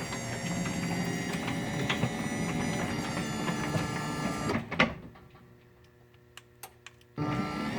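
Skylink side-mount jackshaft garage door opener motor running with a steady hum, then stopping with a clunk a little over halfway through. A few faint clicks follow in the quiet, and the motor starts up again abruptly near the end.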